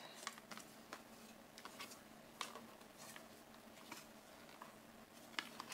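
Faint, scattered light clicks and taps of hard plastic pet-feeder parts being handled, a perforated plastic insert being worked loose in the lid, with a slightly louder click about two and a half seconds in.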